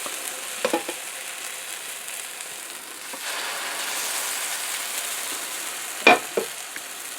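Almond flour pancake batter sizzling as it fries in a hot pan, a steady hiss that grows louder about three seconds in. Two short squeaks cut through it, the louder one near the end.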